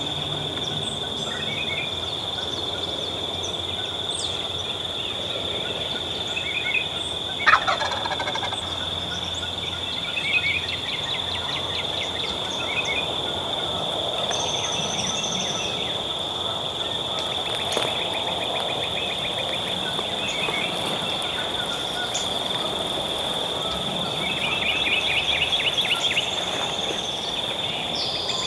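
Wild turkey gobbler gobbling, one loud gobble about seven and a half seconds in, over a steady high drone of insects and scattered small songbird chirps and trills.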